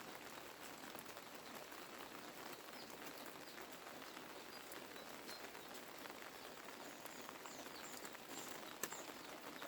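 Faint steady rain pattering, with a few small high bird chirps in the second half and a single sharp tap near the end.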